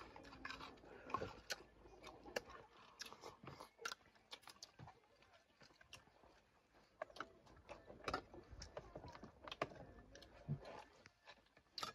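Quiet eating sounds: people chewing and smacking their lips over fish and rice, with scattered irregular clicks from spoons on plates.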